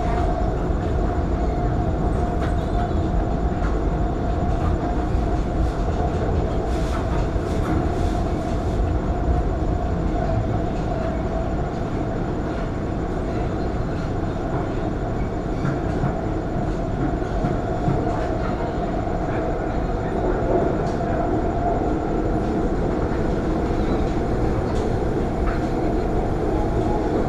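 Metro train running, heard from inside the carriage: a steady rumble with a constant hum over it.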